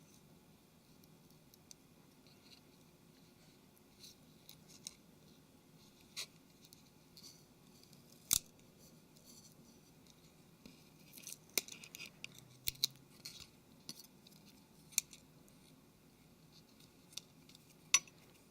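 Thin metal blade working at double-sided tape and parts inside a Nokia Lumia 720: scattered light clicks and scratches, one sharper click about halfway through and a busier run of ticks in the latter part.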